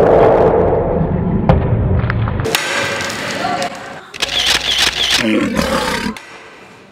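Loud shouting voice, a drawn-out yell that fades away toward the end.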